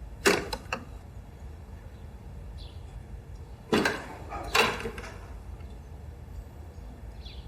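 Sharp knocks or clacks: three in quick succession just after the start, then two louder ones around four seconds in. Faint short bird chirps sound now and then.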